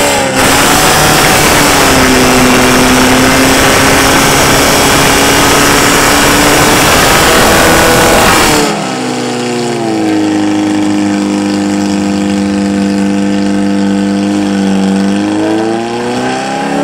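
Portable fire pump's engine revving up and running flat out under a loud hiss as it drives water through the attack hoses. About halfway the hiss stops abruptly while the engine keeps running at high revs, and near the end the revs drop away.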